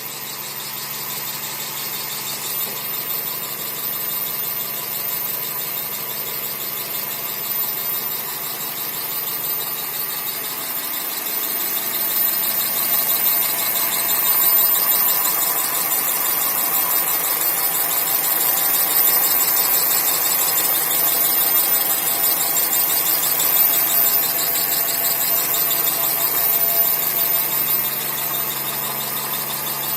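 Toyota Echo whistling and puffing like a little steam engine while running: a steady, very high-pitched whistle over a rushing noise that grows louder about halfway through.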